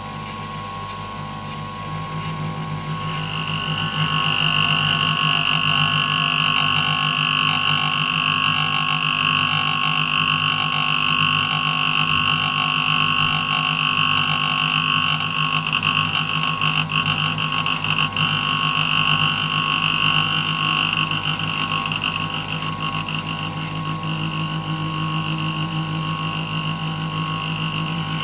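Homemade CNC key cutting machine cutting a key blank: the small bench-grinder motor that drives the cutter runs steadily while the stepper motors move the XY table, with a pulsing low hum. It grows louder about three seconds in, when a high whine joins.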